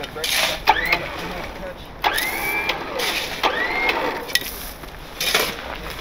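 Mechanical clicking and ratcheting of recovery rigging being handled and fitted, with three short rising squeaks.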